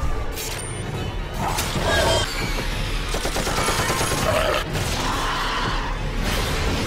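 Rapid automatic gunfire in a sustained run through the middle, mixed over film-trailer music.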